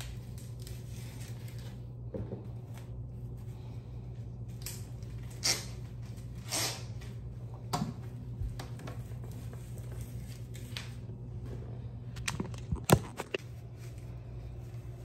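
Steady low room hum with scattered short clicks and rustles of small objects being handled, the loudest a sharp click near the end.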